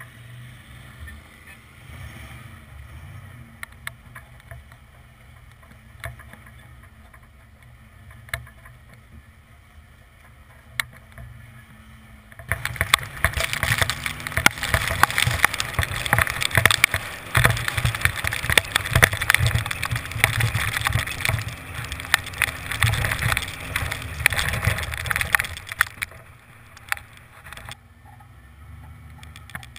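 1992 Ford F150 pickup's V8 running low as the truck crawls over sand, heard close to the wheel from low on the truck's side. About twelve seconds in, a much louder, dense crackling rush of noise covers it for some thirteen seconds, then falls back to the low engine rumble.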